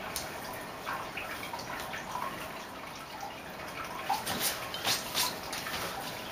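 Kitten scrabbling and tumbling inside a nylon pop-up play tent: scattered soft taps, scratches and fabric rustles, getting louder and busier from about four seconds in.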